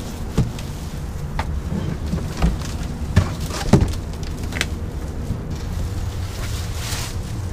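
Cardboard box and plastic wrapping rustling and knocking as a portable inverter generator is lifted out of its packaging, with several sharp knocks, the loudest between three and four seconds in. A steady low rumble sits underneath.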